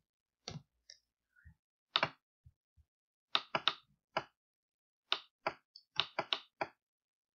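Scattered single clicks of a computer keyboard and mouse, about fifteen, spaced irregularly with short gaps between them.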